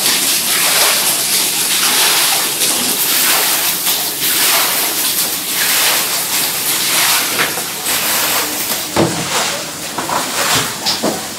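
Steady rush of splashing, running floodwater, with a few sharp splashes or knocks about nine to eleven seconds in.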